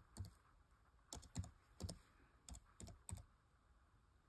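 Laptop keyboard keys being typed, about seven separate keystrokes at an uneven pace, entering a file name; the keystrokes stop about three seconds in.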